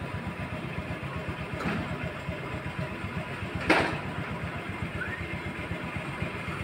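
A small engine idling steadily with a rapid low pulsing, and a single sharp click a little past halfway.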